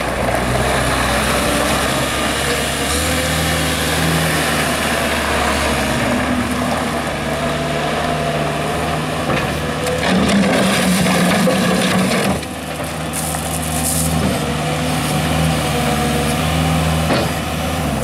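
1998 New Holland LX665 skid steer's turbocharged diesel engine running under load as the loader drives and turns, its speed rising and falling; the engine note drops briefly about twelve seconds in, then picks up again.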